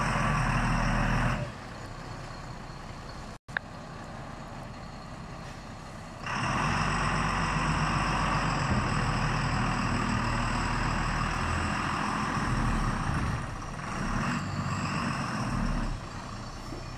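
Diesel engine of a heavy log-laden truck working hard to pull through deep mud, with a high whine over it. It revs strongly in two long spells and drops back to a lower run in between, the second spell lasting about ten seconds.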